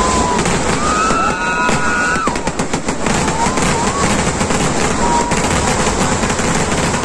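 A fireworks barrage: a rapid, unbroken string of firecracker bangs and crackles. A few high whistling tones sound over it, one about a second in and shorter ones later.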